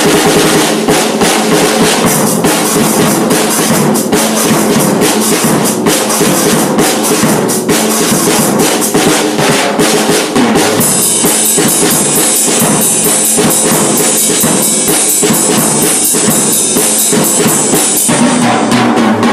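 A JinBao drum kit played in a fast, busy solo of dense snare, tom and bass-drum strokes. From about halfway the sound turns brighter and hissier as cymbals are played steadily along with the drums, until just before the end.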